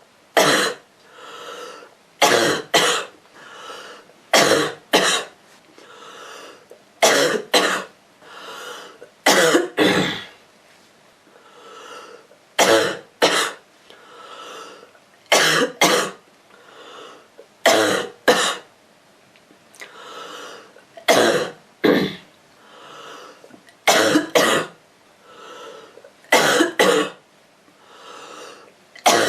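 A girl coughing over and over, mostly two sharp coughs at a time, about every two and a half seconds, with an audible breath drawn in between.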